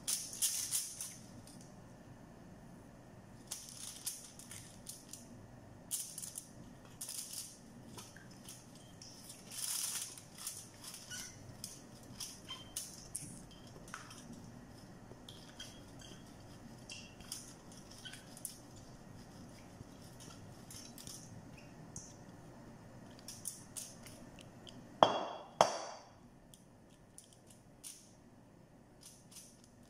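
Marinated chicken legs and thick yogurt marinade being tipped from a glass bowl onto aluminium foil and scraped out with a silicone spatula: scattered wet squelches, scrapes and light clicks, with a louder knock near the end.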